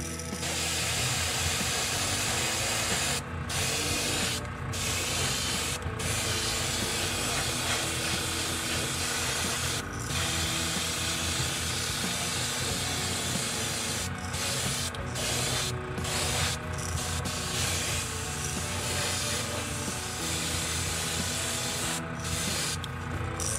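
Airbrush spraying clear coat onto a crankbait: a steady hiss of air and paint, cut by about ten brief pauses as the trigger is let off, over a steady low hum.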